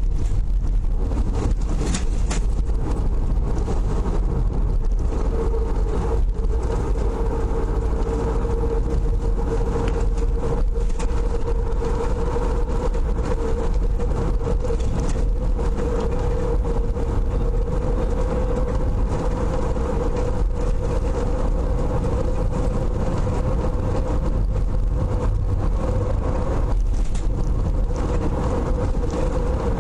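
Car driving, heard from inside the cabin: a steady low engine and road rumble with a constant hum running under it.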